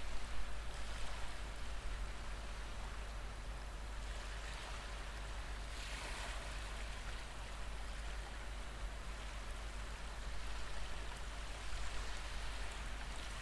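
Ocean wave ambience: a soft, steady wash of surf that swells and eases a few times.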